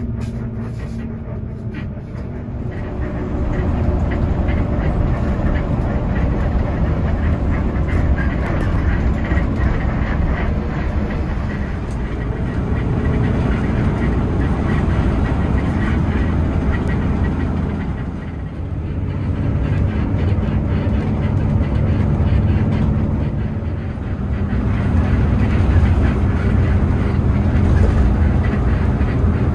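Bus engine running, heard from inside the passenger cabin as a steady low rumble with road and cabin noise. The rumble swells about three seconds in and eases briefly twice later on.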